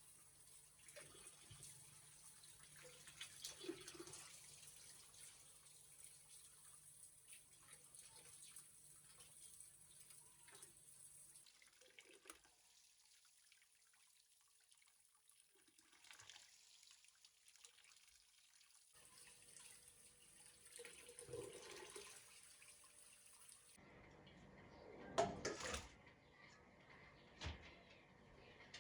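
Faint sounds of water at a sink, with scattered soft knocks and clatters; the sound changes abruptly several times, and louder clatters come near the end.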